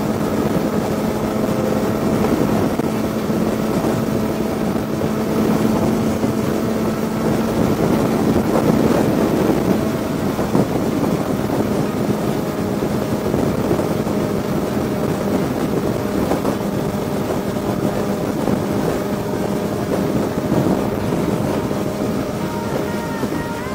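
Honda sport bike engine running at a steady highway cruise, its pitch holding constant, with wind rushing over the onboard microphone.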